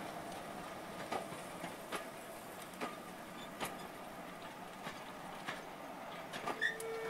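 Railway coaches rolling slowly past, their wheels clicking and knocking over the rail joints in an uneven rhythm. A short squeal starts right at the end.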